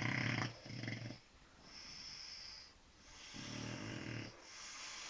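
A sleeping pet snoring in a slow rhythm. Rattling snores come at the start and again about three and a half seconds in, each followed by a quieter, airy breath.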